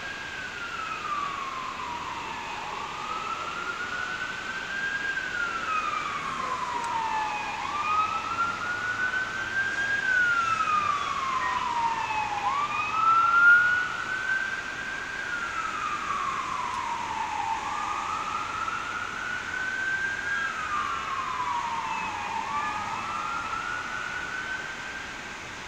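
Fire truck siren sounding a slow wail, its pitch rising and falling in a steady cycle about every five seconds.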